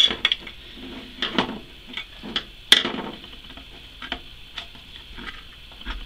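An SSD being shifted about inside a heavy-gauge metal 3.5-to-2.5-inch drive bracket to line up its screw holes: irregular light metallic clicks and scrapes, with one louder clack a little before halfway.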